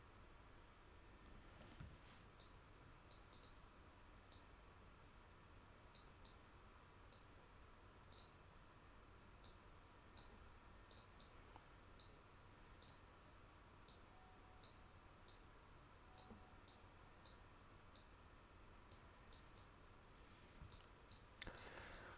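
Faint computer mouse clicks, irregularly spaced at roughly one a second, over near-silent room tone.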